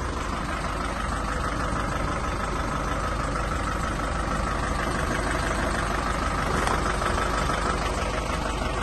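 1997 Ford Transit van's engine idling steadily, with an even low pulsing.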